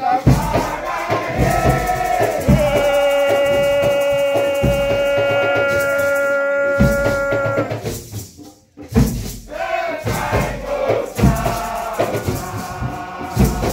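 Nyahbinghi drumming with shakers and group chanting. In the middle one long steady note is held for about five seconds; the music breaks off briefly about eight seconds in, then the drumming and voices resume.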